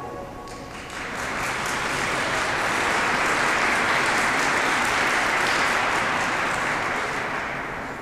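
Audience applause after a choir song. It starts about half a second in as the last sung chord dies away, swells, and fades toward the end.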